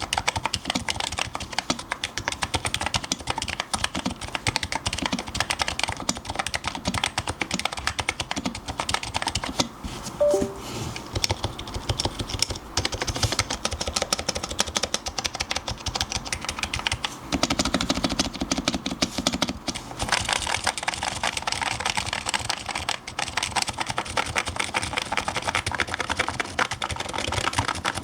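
Continuous rapid typing on a custom electro-capacitive keyboard with Topre-style 30 g rubber-dome switches, the keystrokes running together into a dense stream of clicks and thocks.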